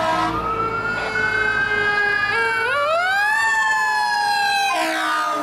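Fire engine siren wailing, its pitch sliding slowly up and down, with two sweeping tones overlapping in the middle; near the end it changes to steady held tones.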